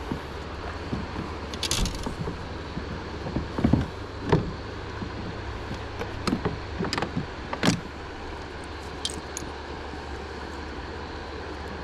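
Scattered clicks, knocks and a short rattling jingle of gear being handled, over a steady low rumble.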